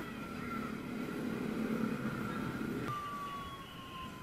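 Street noise of motorcycles riding past. About three seconds in, a long steady high tone begins and slowly drops in pitch.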